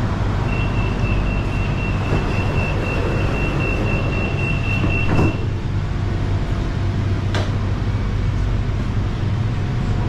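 Monorail car's door-closing warning: rapid high beeping for about five seconds, ending as the sliding doors shut with a thud. A sharp click follows a couple of seconds later, over the car's steady hum.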